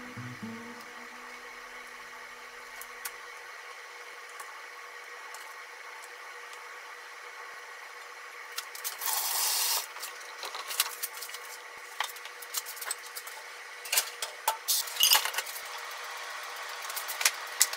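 Kitchen handling sounds over a faint steady hum. There is a short noisy burst about halfway, then scattered light clicks and taps as a seasoning tube and a small bottle are handled over a stainless steel bowl of minced chicken.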